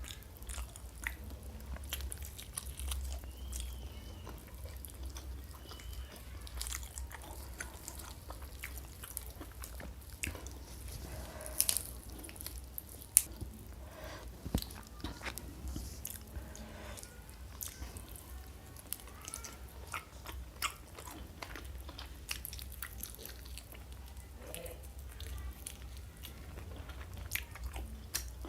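Close-miked eating: irregular crunching bites and chewing, with a steady low hum underneath.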